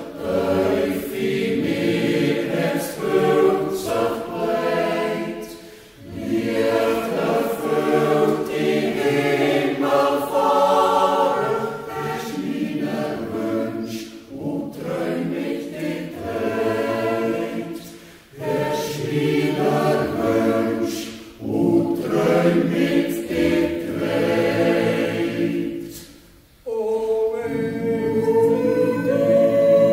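Swiss yodel club choir of men's and women's voices singing a cappella in sustained phrases, each ending in a short breath pause, about five times.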